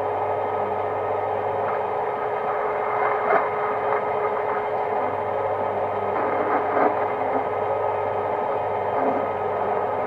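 Metal lathe running steadily with a constant whine and hum while the cutting tool turns down a brass bar. Two short louder noises from the cut come about three and seven seconds in.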